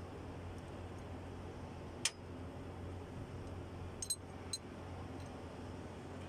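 Sharp metal clinks of parts and tools being handled during engine teardown: one about two seconds in, then three quick ones about two seconds later, over a steady low hum.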